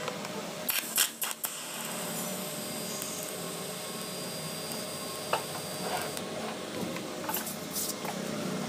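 TIG welding arc on stainless steel tube: a few sharp clicks about a second in as the arc strikes, then a steady hiss for about five seconds that stops, followed by a couple of faint clicks.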